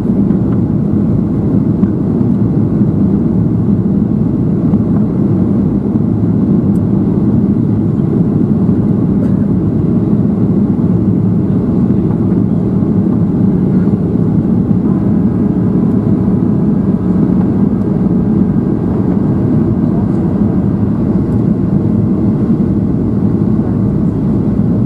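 Steady low rumble of a Boeing 737-700's CFM56 jet engines and rushing airflow, heard inside the passenger cabin during the descent on approach. A faint steady whine joins a little past the middle.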